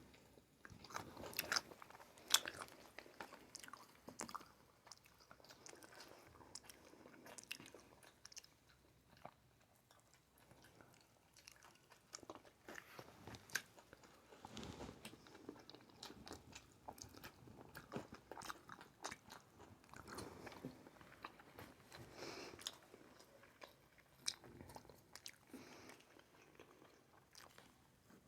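Close-up eating sounds of sushi being bitten and chewed, with soft wet mouth sounds and scattered small clicks.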